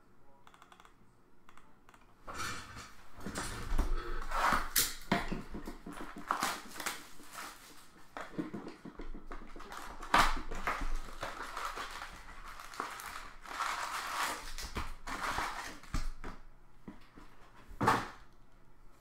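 Plastic wrap and foil trading-card packs crinkling and rustling as a card box is opened by hand and the packs are taken out, with sharp clicks and taps as they are handled and set down. It starts about two seconds in, with a loud tap near the end.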